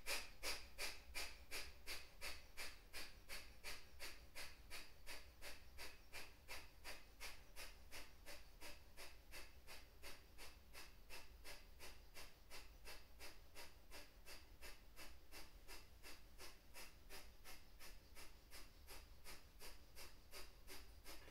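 Kapalabhati breathing: a fast, even run of short, forceful exhalations through the nose, about three puffs a second, kept up without a break.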